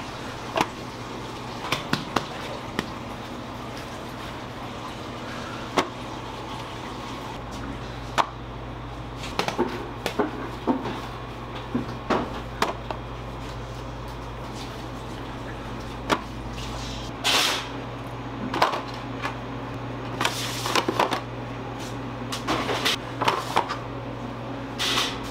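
Dough being shaped by hand on a bakery work bench: scattered light knocks and taps, with three short scraping sounds in the second half, over a steady machine hum.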